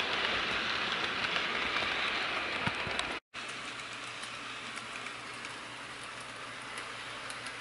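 HO scale model train, a Santa Fe diesel pulling cars, running on sectional track: a steady rolling hiss with faint clicks over the rail joints. About three seconds in the sound cuts out for a moment, then carries on quieter.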